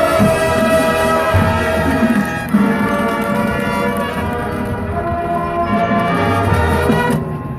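Marching band brass playing sustained full chords over percussion, changing chord about two and a half seconds in and cutting off shortly before the end.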